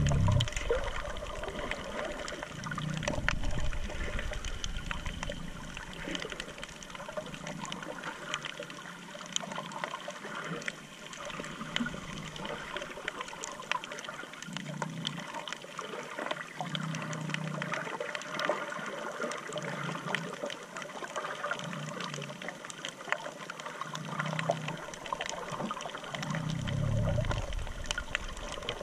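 Muffled underwater water noise picked up by a camera held below the surface: a steady hiss of moving water with scattered faint clicks, and low muffled surges every couple of seconds, the strongest right at the start and near the end.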